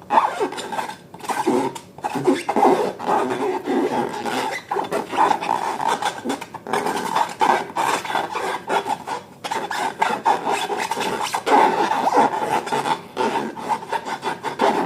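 Slime being stirred and worked by hand, a continuous rubbing, scraping noise with brief breaks every second or two.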